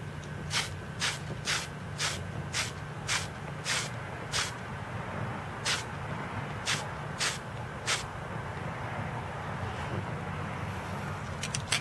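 Paint spraying in about a dozen short puffs, roughly two a second, stopping about eight seconds in. These are light extra coats of black paint being put on an engraved watch dial.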